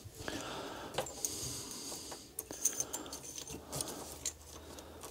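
Scattered light metallic clicks and clinks of small metal parts being handled: the short lengths of steel chain and wire being fitted through the retriever's end cap.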